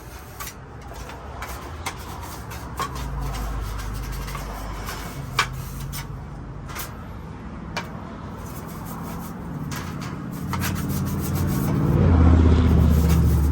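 Rubbing and scraping with a few sharp clicks, as the parts of a fan are worked on by hand. A louder low rumble comes near the end.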